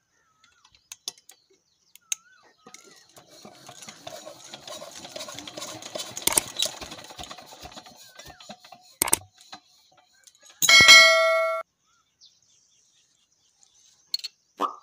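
Hand tools being handled on a stopped diesel engine: a few seconds of scraping with small clicks, then a sharp metal click. Next comes a loud metallic ding that rings for about a second, and near the end a shorter clink.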